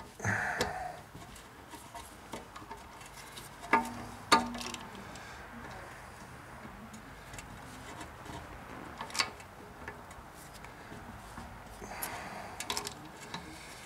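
A few sharp metallic clicks and clinks from a hand wrench turning a piston tool against a rear brake caliper, with quiet stretches between them. The clicks come as the caliper piston is being pushed back into its bore, which is going in only slowly.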